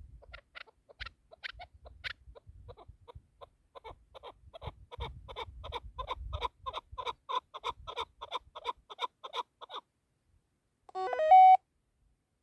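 Chukar partridge calling: a long rhythmic run of short clucking notes, about four a second, louder and faster after a few seconds, then stopping. Near the end, a brief, loud run of stepped electronic tones.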